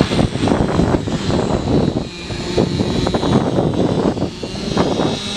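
Passenger train in motion: a steady, loud rushing rumble of the running train, with uneven knocks from the wheels and track.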